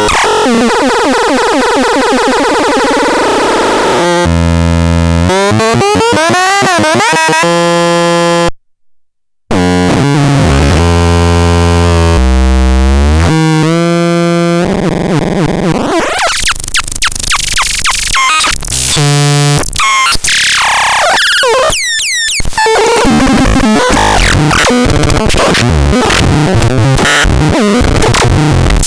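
Megastron MGT 1 playing electronic synthesizer sounds: buzzy tones that sweep up and down and jump between stepped pitches, turning into harsh noisy bursts in the second half. The sound cuts out for about a second roughly nine seconds in.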